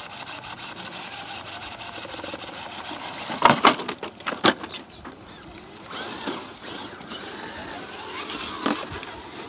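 Radio-controlled rock crawler grinding and scraping against rock, a faint electric-motor whir at first, then two sharp knocks about three and a half and four and a half seconds in.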